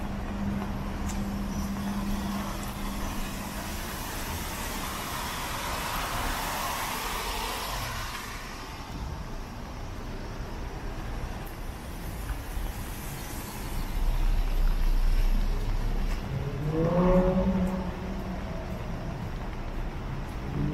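Street traffic on a rain-wet city road: a car passes with tyre hiss that swells and fades a few seconds in. Near the end a heavier vehicle's low rumble comes through, and an engine rises briefly in pitch as it pulls away.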